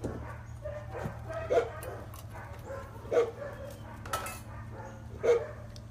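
A dog barking: three short single barks about every two seconds.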